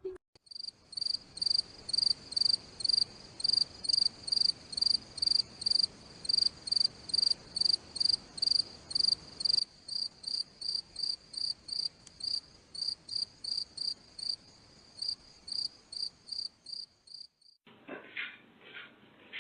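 Cricket chirping in an even rhythm, a little under three high chirps a second, stopping shortly before the end. A few faint clicks follow.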